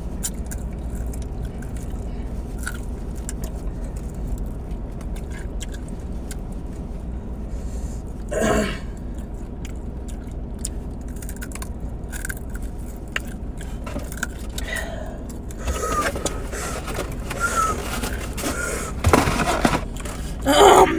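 Steady low hum of a car cabin with scattered small clicks and rustles of food and packaging being handled. A short vocal sound comes about eight seconds in, and the clicks and mouth sounds grow busier near the end.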